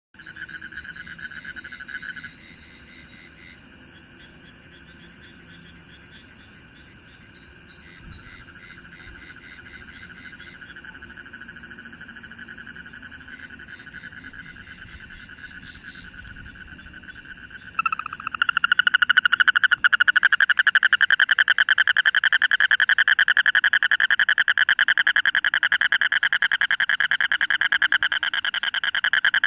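A toad calling with a rapid, crackling trill. A loud trill comes at the start, fainter trills follow, and from about two thirds of the way in a loud, continuous trill carries on.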